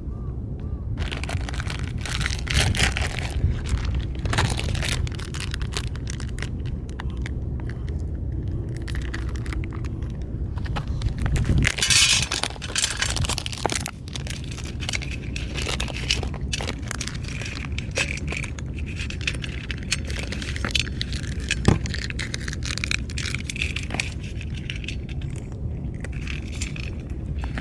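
Metal cat-food tins and dishes clinking and scraping as they are handled, with scattered clicks over a steady low rumble.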